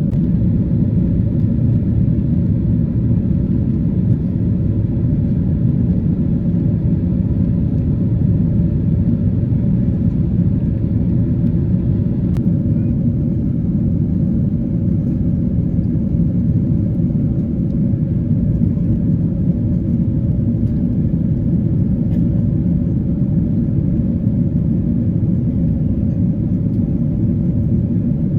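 Steady cabin rumble of a Boeing 777-300 airliner in cruise flight: engine and airflow noise heard from inside the cabin, low and unchanging.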